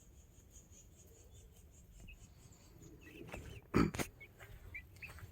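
Young chickens making a few faint, short chirps, with one sharp knock close to the microphone about four seconds in.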